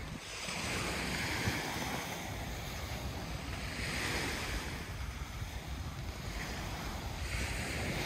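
Small sea waves washing onto a sand beach, swelling and fading about every three to four seconds, with wind rumbling on the microphone.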